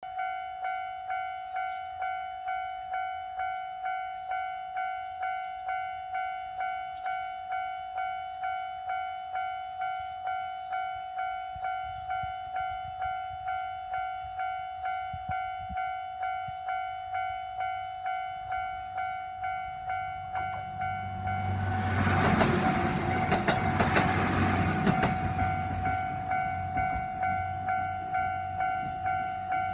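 Japanese railway level-crossing alarm ringing steadily at about two dings a second. About twenty seconds in, a diesel local train runs over the crossing: its rumble and wheel clicks swell and are loudest for about five seconds, then fade while the alarm keeps ringing.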